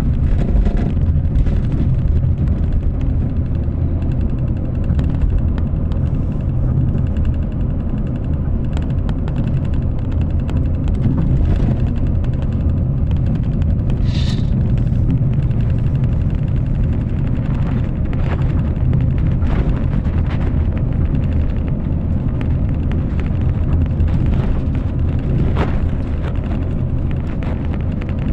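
Steady low rumble of road and wind noise from a vehicle travelling at speed along a concrete highway, with a brief higher-pitched sound about halfway through.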